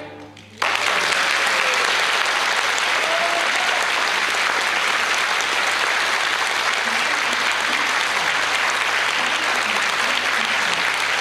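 Audience applauding, breaking out suddenly about half a second in as the last chord of the piano trio dies away, then carrying on steadily.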